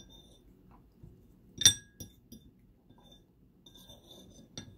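Metal fork clinking on a ceramic plate as it picks up pie crust: one loud ringing clink a little under two seconds in, then lighter taps and scrapes, and another sharp clink near the end.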